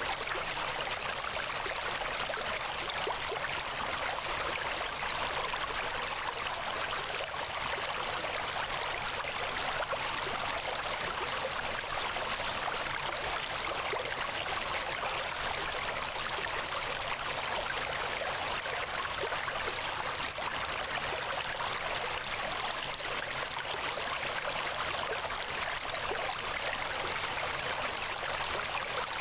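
Steady, even rushing noise with no pitch or rhythm, like running water, unchanging throughout.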